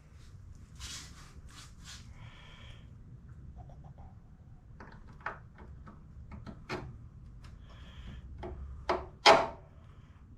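Metal clinks, knocks and scrapes of suspension parts and hand tools being fitted by hand. There are two short ringing clinks, and two louder rasps come near the end.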